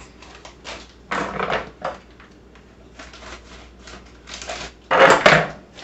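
Plastic bag of dried cranberries crinkling and crackling as it is handled and worked open, with two louder bursts of crackle, about a second in and near the end.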